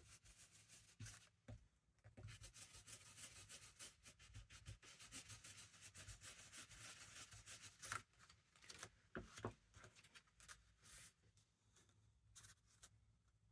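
Faint rustling and rubbing of paper labels being handled and laid on a paper page: a few seconds of continuous scratchy rustle, then short separate scrapes and light taps.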